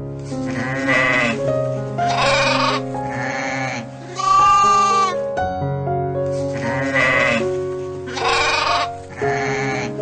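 Goats bleating, a run of separate wavering calls one to two seconds apart, over background music.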